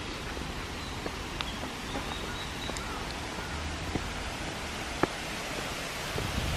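Steady rush of a small waterfall in the woods, growing a little louder near the end, with a few faint clicks and faint chirps.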